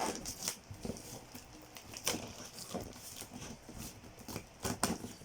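Small toys and their packaging being handled: irregular clicks and short rustles, with a few sharper knocks about two seconds in and near the end.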